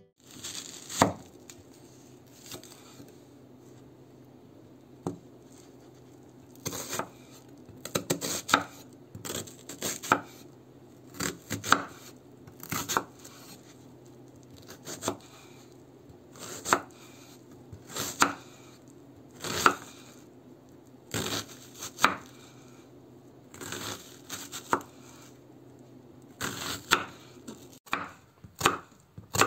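Chef's knife slicing an onion on a wooden cutting board: each cut ends in a sharp knock of the blade on the board, single or in quick groups of two or three, about once a second with a few longer pauses. A low steady hum runs underneath.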